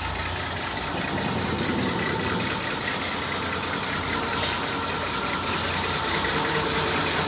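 Diesel engine of a large 30-ton forklift idling steadily, with a brief hiss about halfway through.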